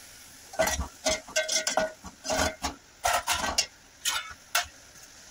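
Metal slotted spoon scraping and clinking against an aluminium pot while wet moong dal is stirred, in a series of separate strokes.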